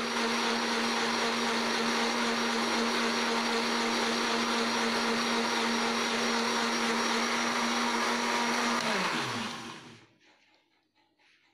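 Electric countertop blender running steadily as it purées watermelon into juice. About nine seconds in it is switched off and the motor hum drops in pitch as it spins down, stopping about a second later.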